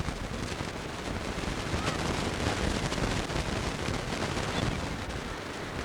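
Dense crackling and knocking of hands handling the camcorder, rubbing and bumping right at its microphone, over a wash of surf and wind.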